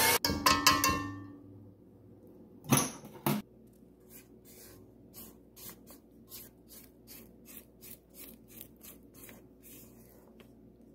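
An electric mixer runs down and stops in the first second. Then a spatula knocks twice against a metal mixing bowl and goes on scraping and stirring cake batter in quick, even, faint strokes, about three a second.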